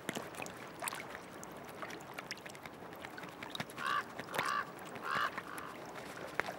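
Beaver gnawing and chewing poplar bark, with irregular crunching clicks throughout. About four seconds in, waterfowl give a quick run of about five short calls.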